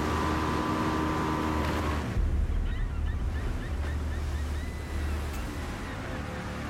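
A rigid inflatable boat's outboard motor runs steadily over sea and wind noise. After about two seconds it gives way to a low sea rumble with a string of short high chirps and then a steady high tone.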